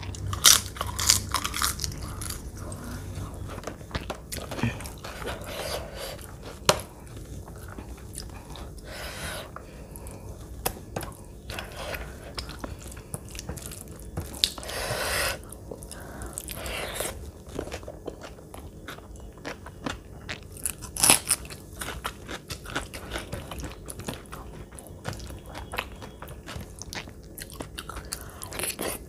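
Close-miked eating sounds: crisp crunching bites of a papad at the start, then steady chewing with several more loud crunches along the way.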